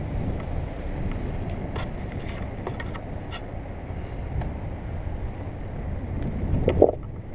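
Wind buffeting the microphone of a camera riding along, over a steady low rumble from the wheels on rough paving, with a few faint clicks and a short pitched sound near the end.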